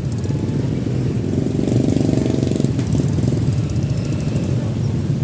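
Motorcycle engine running with road noise while riding in slow traffic, swelling louder for about a second near two seconds in.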